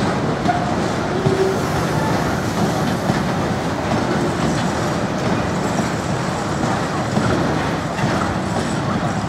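A long rake of freight hopper wagons rolling steadily past, the wheels clattering over the rail joints in a continuous rumble.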